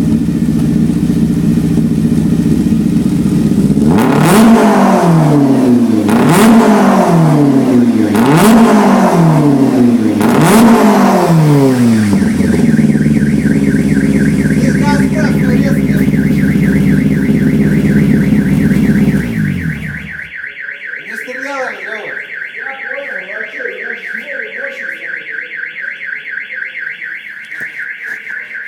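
Fox D63 car alarm siren cycling through its tones. First a steady low tone, then four falling sweeps about two seconds apart, then a rapid high-pitched warble. The low tones cut off suddenly about 20 seconds in, leaving the fast high warble sounding on its own.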